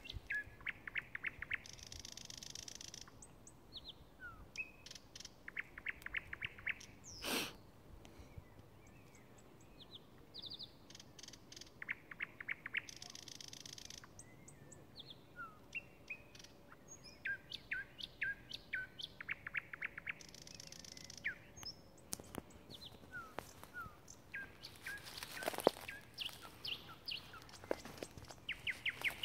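Thrush nightingale singing: phrase after phrase of fast clicking rattles, short whistled notes and harsh rasping phrases, with brief pauses between. A sharp knock comes about seven seconds in, and louder knocks shortly before the end.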